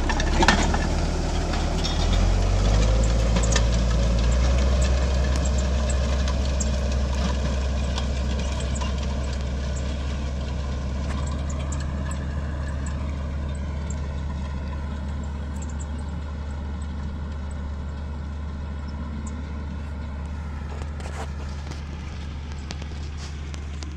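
Six-cylinder tractor engine running steadily under load as it pulls a seed drill. It picks up about two seconds in, then grows gradually fainter as the tractor moves away. A couple of sharp knocks come right at the start.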